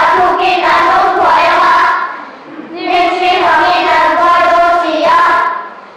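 Children's choir singing, in two sustained phrases with a short breath between them about two seconds in; the second phrase ends shortly before the end.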